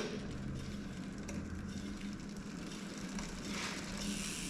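Mountain bike rear wheel, just fitted with a tubeless tyre, spinning freely in the frame: a steady low whir.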